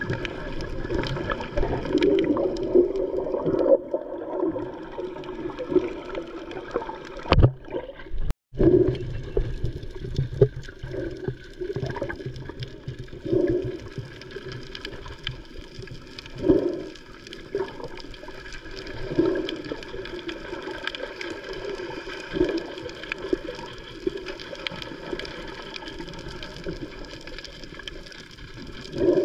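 Underwater sound picked up by an action camera held among snorkelers: muffled water rushing and bubbling, with a soft swell of noise every few seconds. The sound cuts out completely for a moment about eight seconds in.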